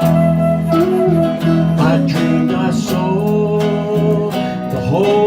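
Live band music led by guitar, with held melody notes that slide between pitches now and then.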